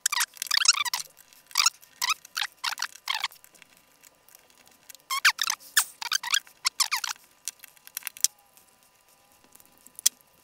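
Knife blade scraping the label and its adhesive off a hard disk's metal top cover, in three bunches of short squeaky strokes with pauses between. There is a single light click near the end.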